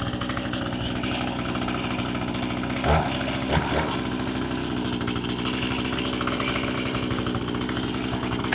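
Echo CS-370 two-stroke chainsaw engine idling steadily, with two brief rising blips about three seconds in.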